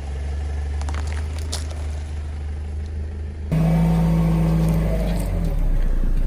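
Car engine running with a steady low rumble. It gets abruptly louder about three and a half seconds in, with a strong low hum.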